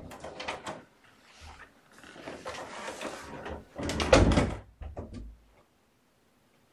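A room door being handled and shut: rustling and clicks, the loudest thump about four seconds in, then quiet.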